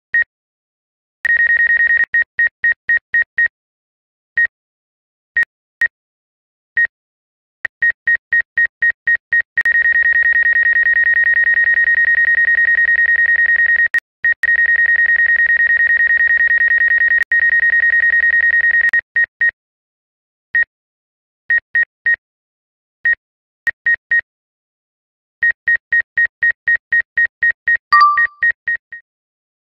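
DJI Fly app obstacle-warning beeps for a Mavic Air 2: a single high electronic tone, loud, sounding as single beeps and quick runs of beeps, held as one continuous tone for about ten seconds in the middle. The beeping is the sign that the drone's sensors detect an obstacle close by. A brief, different two-note alert chirps near the end.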